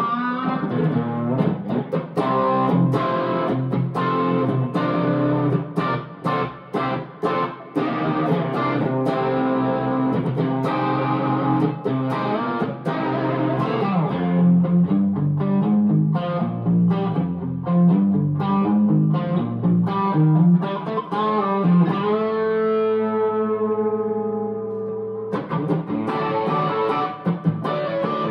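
1961 Gibson SG Special electric guitar with P-90 pickups, played through an amp: quick picked single-note lines and chords. Near the end one note is held and rings out for a few seconds before the playing starts again.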